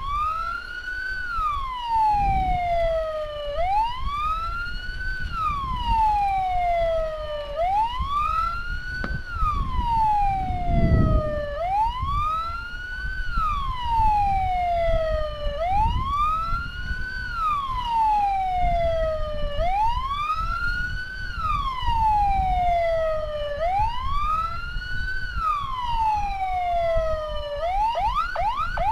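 Electronic siren on an ambulance escort vehicle sounding a wail, warning traffic to pull over: each cycle rises quickly and falls slowly, about every four seconds, and it switches to a fast yelp near the end. A low rumble of road noise runs underneath.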